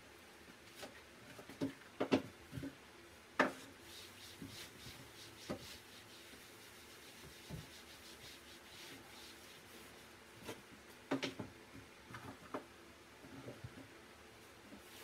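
Shoes and items being handled on shoe-cabinet shelves: a few light knocks and taps as they are picked up and set down, the loudest about two to three and a half seconds in and again near eleven seconds, with faint rubbing strokes between them, as of a cloth wiping the shelves.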